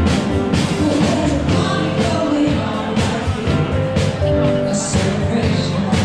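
Music with a singer over a steady beat.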